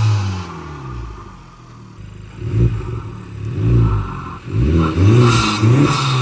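Honda Civic engine being revved in place with the new titanium inlet pipe: a rev dies away at the start, then several short throttle blips, each rising and falling in pitch, from about halfway in.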